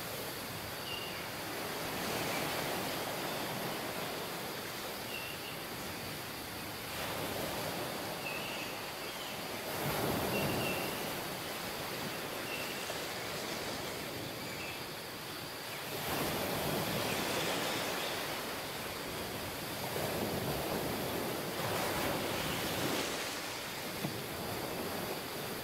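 Sea waves washing onto a sandy, rocky beach, swelling and falling back every few seconds, with a few faint, short high chirps throughout.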